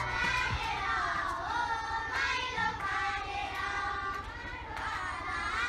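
Children singing, their voices high and gliding.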